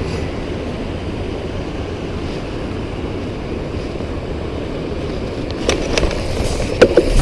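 Steady outdoor rumble of wind on the microphone, with a few sharp clicks and knocks near the end.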